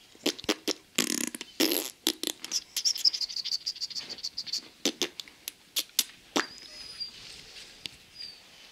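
Three-week-old borzoi puppies stirring in a whelping box: sharp clicks and rustles, then a thin high whine held for about two seconds, and a few short high squeaks near the end.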